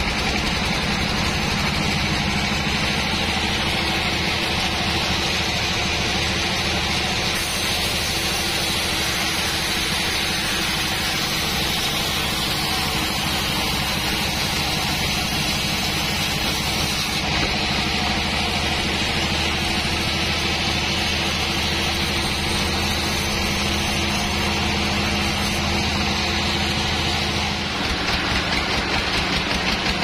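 Band sawmill running, its wide blade cutting lengthwise through a white teak log with a steady machine drone and a hiss of sawing.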